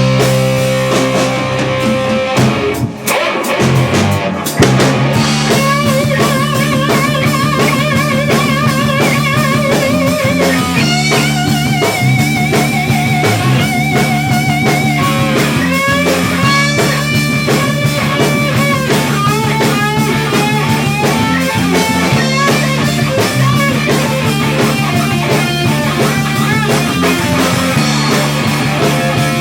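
Hard rock music: electric guitar, bass and drum kit. After a short break a few seconds in, the full band comes back in under a lead guitar line with heavy vibrato.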